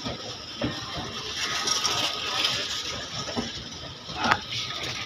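Indian Railways passenger coach rolling slowly into a platform, heard from its open door: a steady rattle of the running train with irregular knocks and clicks, the sharpest a little past four seconds in.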